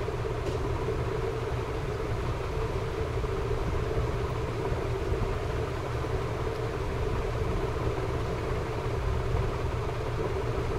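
Gas stove burner running under a kadhai of simmering sugar syrup: a steady low rumble with a faint constant hum.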